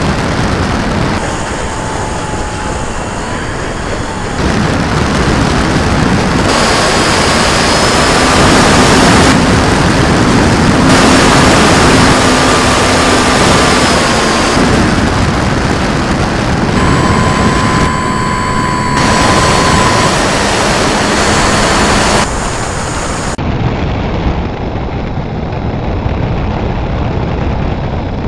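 An FMS Ju-87 Stuka RC plane's electric motor and propeller whining over heavy wind rush on the onboard camera's microphone. The sound jumps abruptly every few seconds, with the whine shifting in pitch between short cuts.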